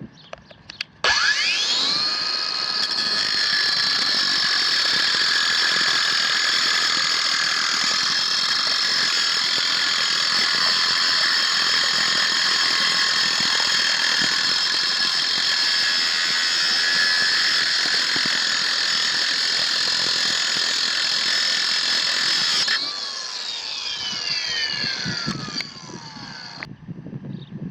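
Kobalt 24-Volt Max brushless cordless angle grinder, fitted with a grinding wheel, switched on about a second in: its whine rises quickly as the motor spins up, then holds steady and high for about twenty seconds. Near the end it is switched off and the pitch falls away over a few seconds as the wheel spins down.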